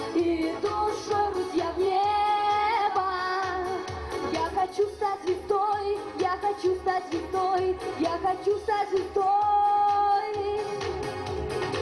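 A girl singing a pop song into a handheld microphone over an accompaniment with a steady beat, holding one note for about a second near the end.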